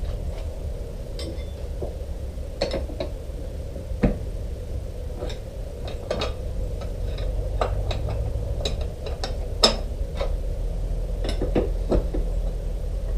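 Metal tools clinking and knocking as a fork tool is fitted and locked onto the motorcycle fork leg, in scattered single clicks with a sharper knock about four seconds in and another near ten seconds.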